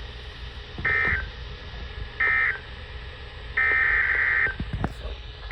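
EAS/SAME digital data bursts, a harsh two-tone warbling buzz. There are two short bursts about a second apart, the end-of-message codes that close one alert, then a longer burst of nearly a second, the header code that opens the next alert, all over steady background noise.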